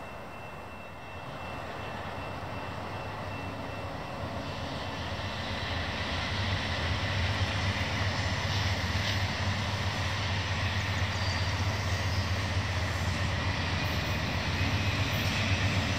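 Amtrak GE Genesis diesel locomotives hauling a passenger train, the engines' low drone growing steadily louder as the train approaches. A thin high whine comes in about five seconds in.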